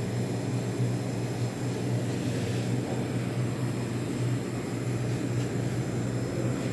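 Steady low machine hum with an even hiss behind it, unchanging and without strokes or clicks.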